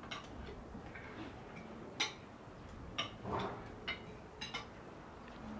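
Forks clinking against plates and bowls as people eat at a table: a handful of light, irregular clicks, the sharpest about two seconds in.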